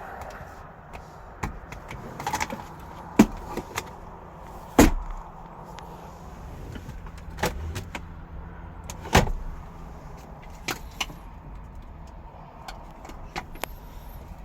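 Irregular clicks and clunks from a car's doors and interior fittings being handled, with two heavier knocks about five and about nine seconds in, over a steady low outdoor hum.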